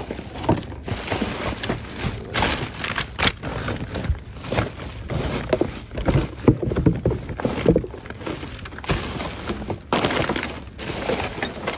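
Plastic garbage bags rustling and crinkling as they are pulled and shifted about in a bin, with irregular hard clinks and knocks of the contents among them.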